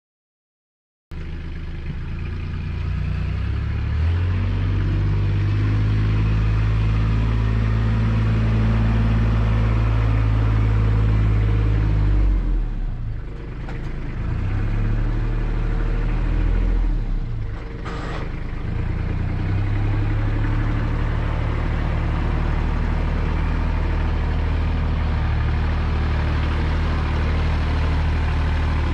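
A machine's engine running steadily. Its pitch and level shift twice near the middle, as when the machine is worked under changing load.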